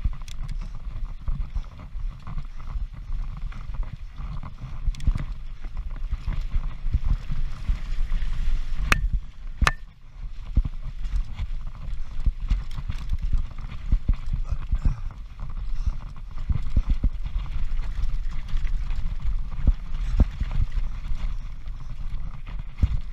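Transition Patrol mountain bike descending a rough trail at race speed: the frame, chain and tyres rattle and clatter over the ground in a constant run of irregular knocks, with wind rumbling on the camera's microphone. Two sharper clicks stand out about nine and ten seconds in.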